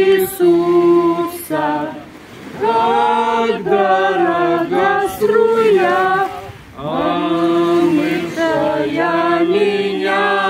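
A small group of men and women singing a hymn unaccompanied, in long held notes, with brief pauses between phrases about two seconds and six and a half seconds in.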